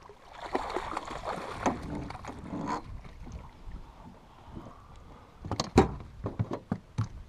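Water splashing in a landing net as a walleye thrashes in it at the surface for a few seconds. Later comes a quick series of sharp knocks and thumps as the net and the flopping fish land on the boat floor.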